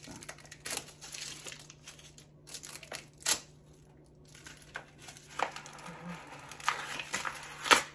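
Wrapping of a giant Ferrero chocolate crinkling and tearing as it is handled and pulled off, with irregular crackles, the sharpest about three seconds in and near the end.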